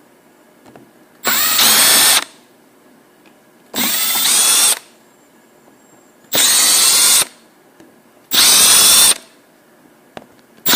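Cordless drill/driver run in four short bursts of about a second each, the motor whine rising as it spins up, with small clicks between bursts as it backs out the screws holding the top of a Quadrajet carburetor.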